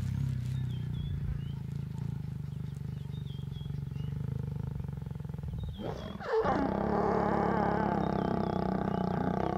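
African lions growling while mating. A low, steady growl gives way about six seconds in to a louder, harsher snarl. Faint bird chirps sound in the first half.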